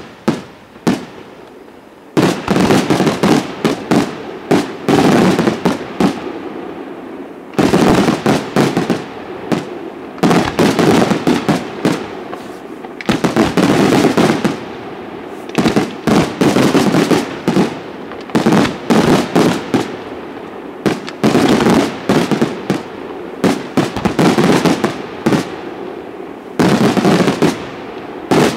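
Aerial firework shells bursting in a rapid barrage: dense volleys of loud bangs with echoes rolling between them, broken by brief lulls every few seconds.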